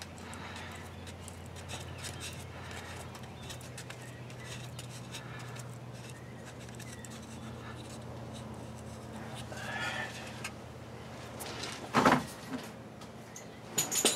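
Light handling noise as a replacement front-axle 4WD shift actuator is worked by hand into its bore on the axle housing: faint clicks and scrapes over a steady low hum, with one sharp metallic clunk about twelve seconds in as it goes into place.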